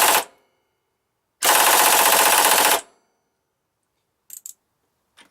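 Husky air impact wrench hammering a 24 mm impact socket on a hardened bolt, trying to loosen it: a burst that stops just after the start, then a second burst of about a second and a half. The bolt and the socket both hold. A few light clicks follow near the end.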